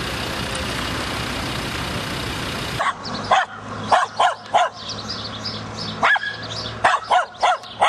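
A steady rushing noise, then, about three seconds in, dogs barking in short, sharp yaps, many in quick succession.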